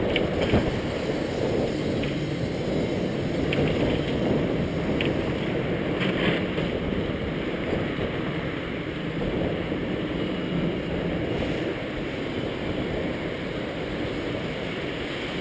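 Hong Kong double-decker tram running along its tracks, heard from its upper deck: a steady low rumble of wheels and motor, with a few light clicks.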